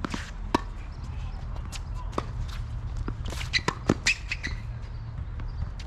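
Tennis ball knocks on a hard court: a scattered series of sharp hits and bounces, several close together a little past the middle, over a steady low rumble.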